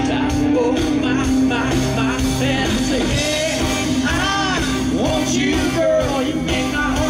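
Live amplified country music: a male singer's voice over a full band with banjo or mandolin, heard from the audience.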